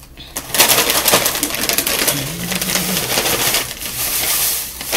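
Plastic bag of tortilla chips crinkling and rustling as chips are shaken out of it, with the dry crackle of chips tumbling onto a dish of chips, starting about half a second in.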